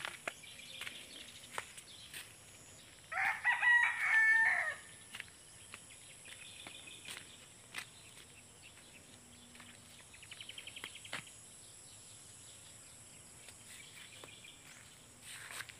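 A rooster crows once, about three seconds in, one call lasting under two seconds. Faint chirps and ticks come before and after it, with a short rapid trill about ten seconds in.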